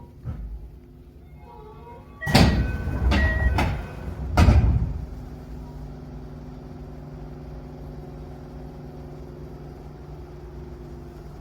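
Tokyo Metro 8000 series car's sliding passenger doors, of the hard-slamming 'bomb door' type, closing at a station stop: a burst of noise with brief tones about two seconds in, then a heavy thud about four and a half seconds in as they shut. After that the stationary train hums steadily and low.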